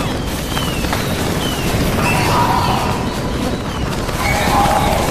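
Fireworks going off: dense crackling and booms of bursting fireworks, with a few short falling whistles in the first second or so.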